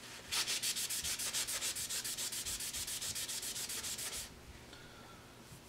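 A rag rubbed quickly back and forth over an oil-soaked, rusty cast-iron drill press table, making a fast run of even, hissy strokes, about ten a second, that stops about four seconds in. It is wiping off Kroil penetrating oil and loosened rust.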